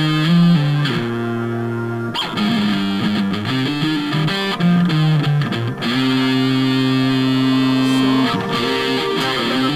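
Electric guitar playing a single-note melody line, with a long held note from about six to eight seconds in.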